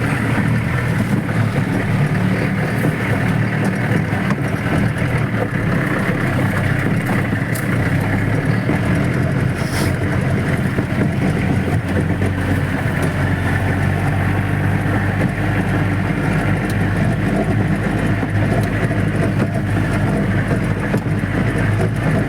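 Off-road jeep's engine running steadily as the jeep drives along a trail, a continuous low drone with no change in pace.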